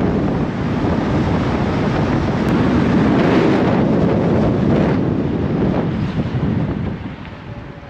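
Wind buffeting the camera microphone: a loud, rough rumble that eases off near the end.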